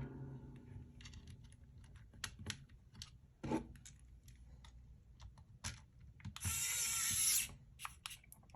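Light plastic clicks and taps from handling an Xbox One controller's shell and screws during reassembly. About six and a half seconds in, a mechanical whir lasts about a second, the loudest sound here.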